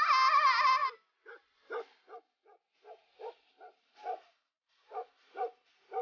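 A loud, drawn-out wavering cry in the first second, then a Tibetan mastiff barking: about a dozen short barks at roughly two a second, with a brief pause midway.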